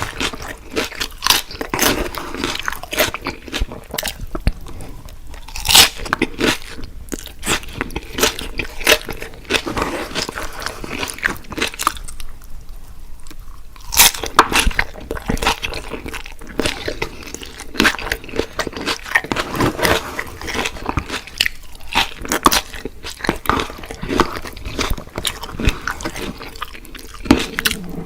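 Close-miked eating of crispy fried food: loud crunching bites and wet chewing, with a short lull about halfway through.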